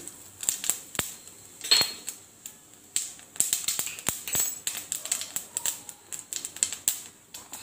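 Mustard and cumin seeds crackling in hot coconut oil: scattered sharp pops and clicks at irregular intervals as the mustard seeds splutter in the tempering. One brief squeak about two seconds in.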